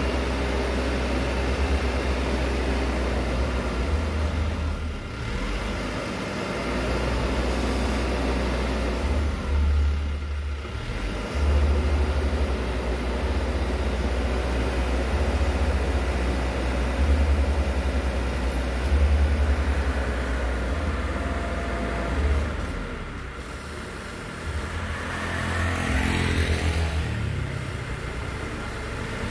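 Hino Dutro crane truck's diesel engine running, its speed stepping up and down while it powers the hydraulic crane lifting a concrete utility pole. Near the end a sound sweeps up and falls away again.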